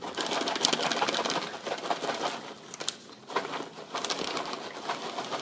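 Popped popcorn being shaken in its paper microwave-popcorn bag: a rustling rattle of kernels against paper, heaviest for the first couple of seconds, then lighter with scattered clicks.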